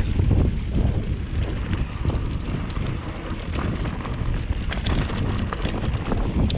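Wind buffeting the microphone while riding an electric mountain bike on a dirt trail, a steady low rumble with scattered small clicks and rattles.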